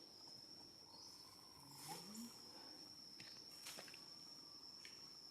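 Faint, steady high-pitched insect drone, such as crickets or cicadas, with a few faint clicks and a short low rising call about two seconds in.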